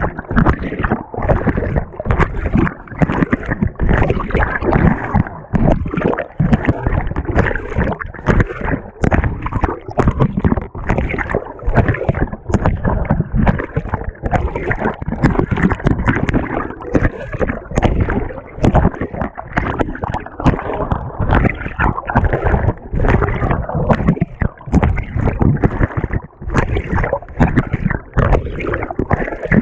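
Water and laundry churning and sloshing in a GE GTW220ACKWW top-loading washer, heard from a camera fixed to the agitator. The sound is a continuous, irregular surging with no break.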